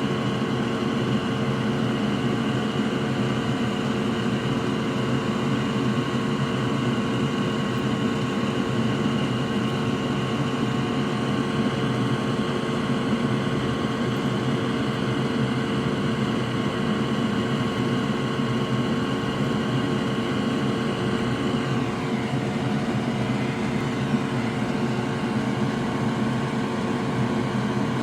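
An electric fan or blower running steadily, a hum made of several steady tones. About 22 seconds in, some of its higher tones slide down in pitch.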